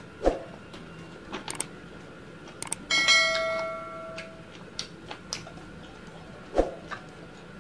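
Subscribe-button bell sound effect: a couple of quick clicks, then a bright several-toned chime about three seconds in that rings and fades over about a second and a half. Two sharp knocks come near the start and near the end, with small clicks of eating by hand between.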